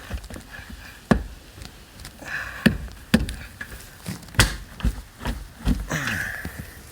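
Irregular knocks and clicks of a flat-blade screwdriver prying at a hidden retaining clip to free a car's interior panel.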